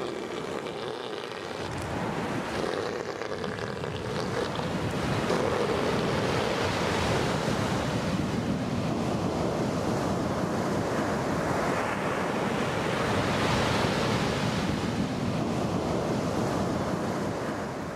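Ocean surf breaking and washing up a beach, rising and falling in long surges, with wind buffeting the microphone.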